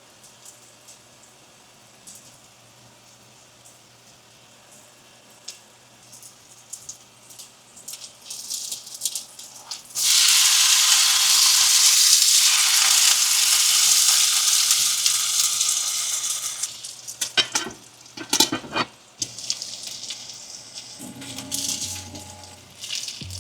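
Okonomiyaki batter of shredded cabbage frying in a hot oiled pan: a loud sizzle starts suddenly about ten seconds in as the batter hits the pan, then dies down over several seconds. Light taps and clicks of utensils come before and after it.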